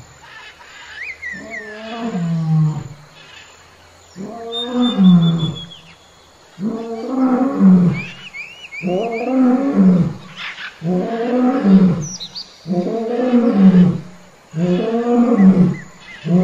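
Male lion roaring in a bout of deep, repeated roars about every two seconds, the first few longer and softer, the later ones louder and more clipped. A few bird chirps sound faintly above them.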